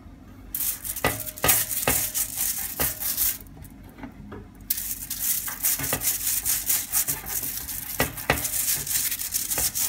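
Crumpled aluminium foil lining a baking tray crinkling and scraping as butter is rubbed over it, in uneven strokes with a short pause a little past three seconds in.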